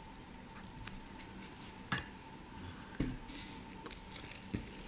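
Faint handling noises from hands working a bead-crocheted egg with thread and a fine steel crochet hook: a few soft clicks and a brief rustle.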